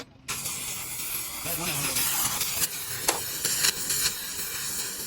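Steady spraying hiss with a few sharp clicks.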